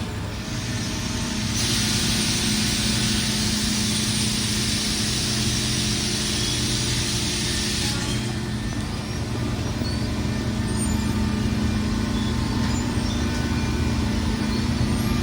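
Holtec CNC lumber-cutting chainsaw machinery running with a steady low mechanical hum. About a second and a half in, a loud hiss joins it and lasts about six seconds before cutting off.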